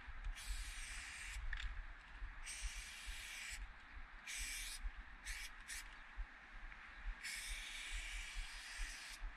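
Aerosol spray paint can spraying in bursts of hiss against a brick wall: a long burst, a second, a few short quick ones, then a longer one near the end. A low rumble sits underneath.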